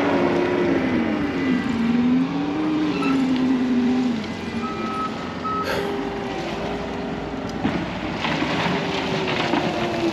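Diesel engine of construction equipment running with its revs rising and falling, with two short backup-alarm beeps near the middle. From about eight seconds in a crackling rattle builds over the engine.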